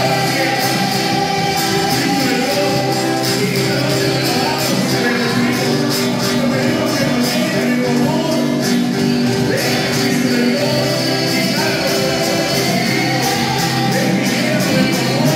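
Church congregation singing a worship song together with musical accompaniment: sustained chords under the voices and a steady rhythmic shaking percussion.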